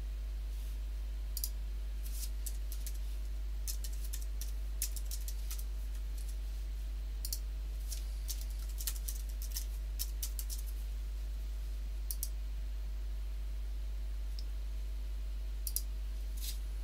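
Computer keyboard keystrokes and mouse clicks, scattered and irregular, with a couple of clicks near the end, over a steady low electrical hum.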